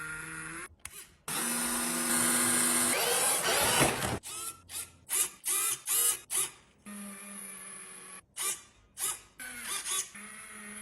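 Small electric motor of a toy car whirring, first in one run of a few seconds, then in a series of short bursts that start and stop.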